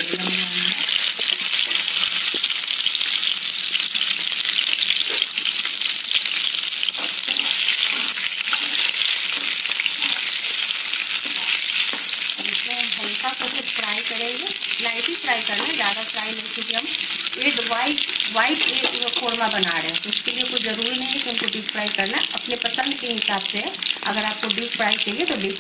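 Whole boiled eggs shallow-frying in a spoonful of hot oil in a nonstick pan: a steady, bright sizzle that starts as the eggs go in and keeps up throughout.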